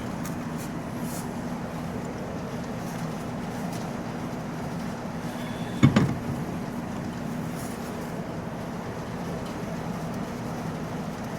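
A steady low hum with a few even pitched tones, with a single sharp metallic knock about halfway through.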